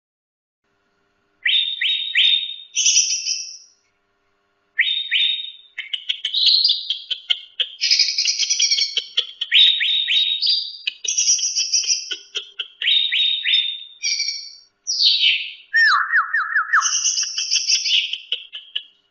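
Cucak rante songbird singing: after a short pause, repeated bursts of rapid whistled and chattering notes that run almost without break in the second half, with one lower-pitched phrase near the end.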